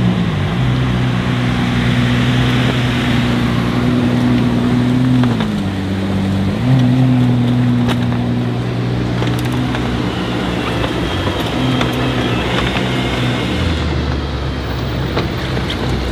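V12 supercar engine idling with a steady hum. Its pitch dips briefly about five seconds in and comes back, and near the end the hum gives way to a lower rumble.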